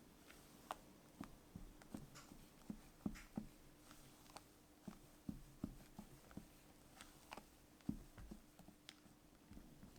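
Quiet, irregular light taps and scrapes from hand work with baking utensils, over a faint steady hum.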